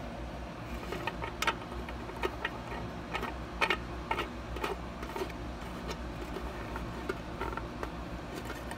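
Light, irregular plastic clicks and taps as a small white plastic fitting is handled and pushed into the bottom of a plastic water-dispenser storage jar, mostly in the first half, over a steady low hum.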